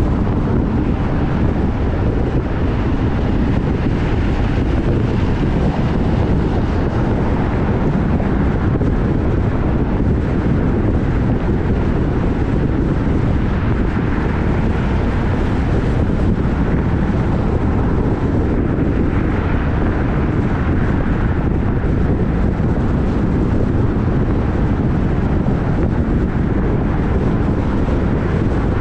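Steady wind noise on the microphone over the low, even rumble of a moving vehicle.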